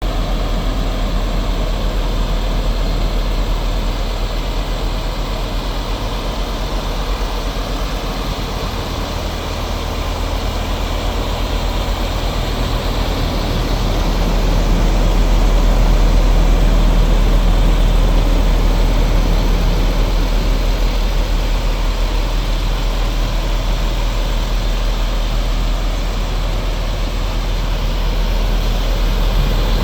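MAN TGX 400 truck's diesel engine running steadily at low speed, swelling a little louder about halfway through before easing back.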